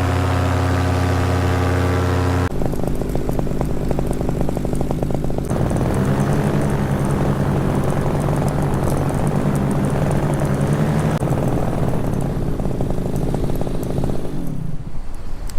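Nitro 200 paramotor engine running under the wing, with a steady low hum. Its note changes abruptly several times.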